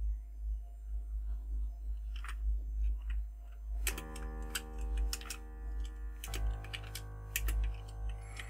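Computer keyboard keys clicking in irregular runs as code is typed, over a steady low electrical hum. About four seconds in, sustained chord-like music tones come in and shift to a new chord a couple of seconds later.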